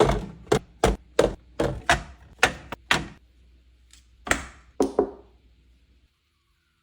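A quick run of hard knocks and thunks, about three a second for three seconds, then two more a second or so later, after which the sound drops away to silence.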